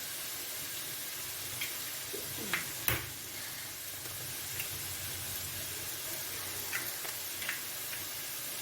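Egg and vegetables frying in oil in a pan: a steady sizzle, with a few light clicks against the pan, the sharpest about three seconds in.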